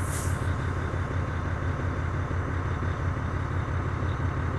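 2006 Volvo truck's diesel engine idling steadily, heard from inside the cab, with a brief hiss at the very start. With the cruise set, the engine keeps running now that the coolant reservoir has been topped up over the low-water switch.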